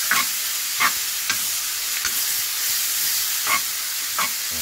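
Kimchi, onion and ham sizzling as they are stir-fried in a coated wok, with a silicone spatula scraping and tossing the food several times.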